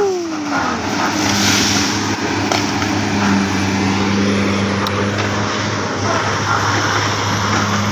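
Komatsu hydraulic excavator's diesel engine running steadily with a low hum while its arm pushes against a tree. A high squeal slides down in pitch and fades within the first second.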